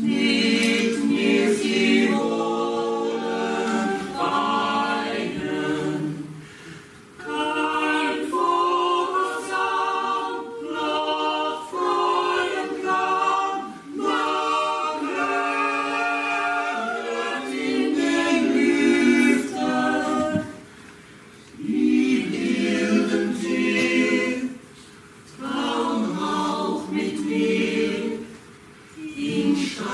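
A mixed group of voices singing a cappella in sustained chords, phrase by phrase, with brief breaks between phrases.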